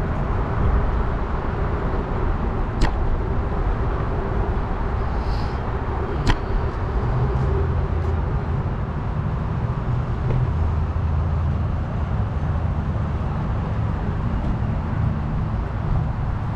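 Steady riding noise from a bicycle ride on an action camera's microphone: low rumbling wind and tyre noise with uneven swells, and two sharp clicks about three and six seconds in.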